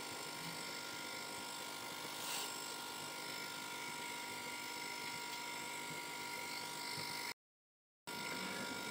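Faint steady room-tone hiss with an electrical hum of a few thin, steady high tones; the sound drops out completely for under a second near the end.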